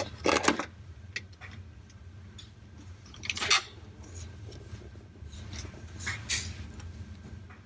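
Small parts being handled and set down on a workbench: a few short clatters and scrapes of hard objects, over a faint steady low hum.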